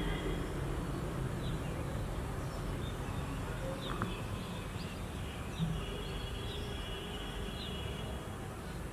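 Oriental magpie-robin giving short, rising call notes, spaced roughly a second apart, over a steady low background rumble. A thin, steady buzz joins in partway through.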